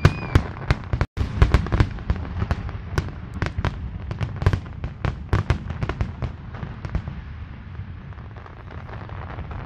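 Fireworks display: a rapid barrage of bangs and crackles from bursting aerial shells, thinning out after about seven seconds. The sound cuts out for a split second about a second in.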